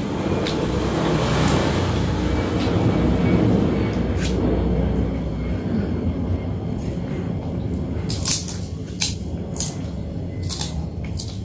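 Someone eating by hand with their mouth close to the microphone, over a low background rumble. From about eight seconds in comes a quick run of sharp crunches: bites into crisp crackers (kerupuk) sprinkled over a meal of yellow rice.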